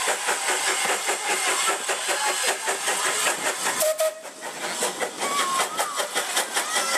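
Small narrow-gauge steam locomotive working with a train of passenger coaches, its exhaust beating in a rapid, even rhythm. The sound briefly dips about four seconds in.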